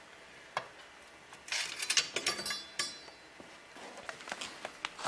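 Metal automatic-transmission parts clicking and clinking as an internal piece is worked out of the case, with a short ringing metallic rattle in the middle and scattered light clicks after it.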